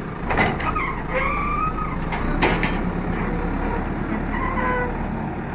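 JCB backhoe loader's diesel engine running steadily as the machine drives, with two sharp knocks, about half a second and two and a half seconds in.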